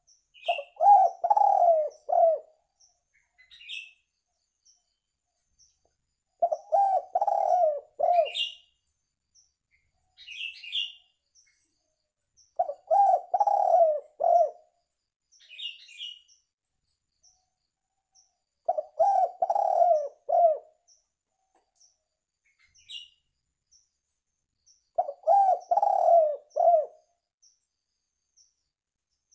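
Spotted dove (tekukur) cooing: a phrase of several low coos about two seconds long, repeated five times about every six seconds. Short high chirps sound between the phrases.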